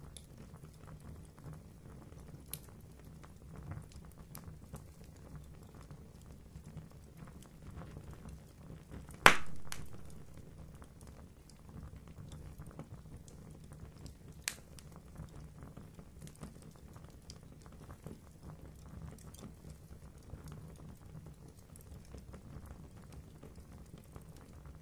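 Fire in a fireplace crackling over a low steady rumble, with scattered small ticks and pops. A single loud, sharp pop about nine seconds in dies away over a second, and a smaller pop comes about five seconds later.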